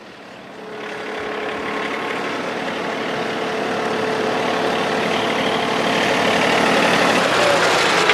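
John Deere compact utility tractor with a front loader, its diesel engine running steadily as it drives up, growing louder as it comes close.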